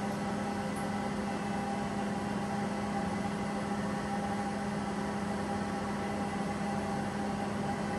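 Steady electrical hum with a few constant tones over a light hiss, from the running DIY metal laser powder-bed 3D printer and its equipment.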